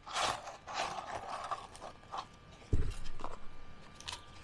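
Fries shaken out of a paper fries carton onto a paper bag, a dry rustle and patter of paper and fries. This is followed by a dull knock on the table a little under three seconds in, then a few light taps.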